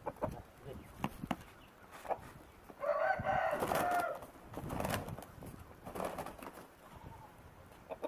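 Asil gamecocks sparring in training: wings flapping and feet scuffing on bare dirt in short knocks and rustles, with one held rooster crow about three seconds in.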